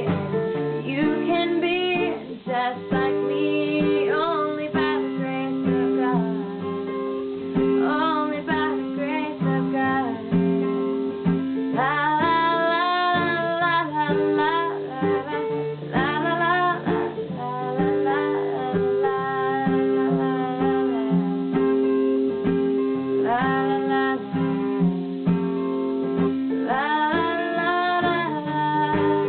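A woman singing a slow song in phrases while strumming chords on an acoustic guitar.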